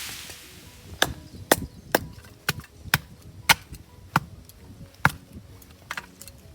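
Axe chopping firewood: about nine sharp, woody strikes, roughly two a second at first and then more spaced out, over faint background music.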